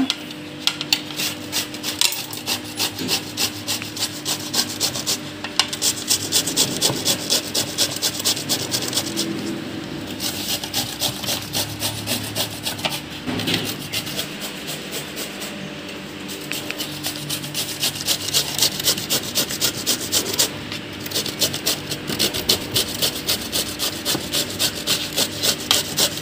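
Peeled bottle gourd being grated on a stainless steel grater: a steady rhythm of rasping strokes, about three a second, broken by a few short pauses.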